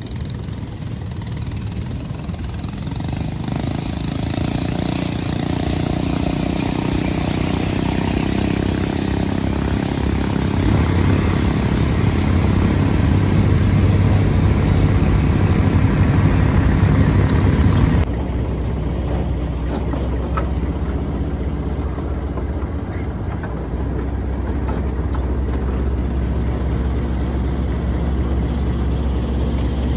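A motor engine running and growing gradually louder for about fifteen seconds. It is cut off abruptly, and a steady low rumble carries on after the cut.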